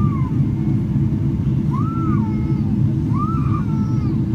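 Steady low rumble inside the cabin of a Boeing 777-300ER on approach, the GE90 engines and the airflow heard from a window seat by the wing. Faint rising-and-falling tones sound over it three times.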